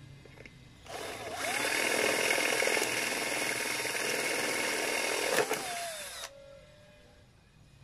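Cordless drill boring screw holes through a clear plastic headlight lens. The motor whine rises as it spins up about a second in, runs steadily for about five seconds, then cuts off and winds down.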